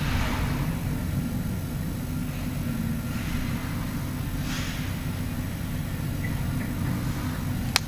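Heavy construction machine's diesel engine running steadily with a low rumble, with three short hisses over it and a sharp click near the end.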